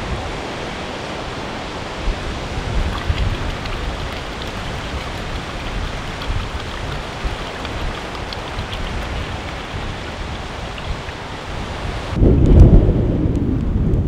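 Steady wind and the hissing wash of the sea. About twelve seconds in, a gust buffets the microphone with a loud low rumble.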